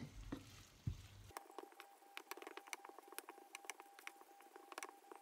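Wooden spatula stirring and scraping a tuna and vegetable mixture in a nonstick frying pan over heat: faint, irregular clicks and crackles of stirring and light sizzling, with a faint steady tone behind them.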